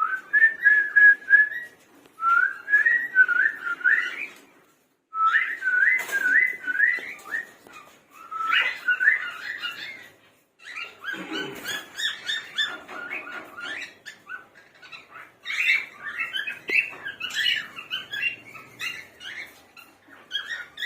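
Male cockatiel whistling: phrases of short, rising whistled notes with brief pauses, becoming a busier jumble of whistles and chirps in the second half.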